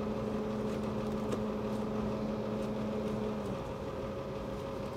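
Steady hum of restaurant kitchen machinery, such as refrigeration or ventilation, with a low tone in it that cuts off about three and a half seconds in.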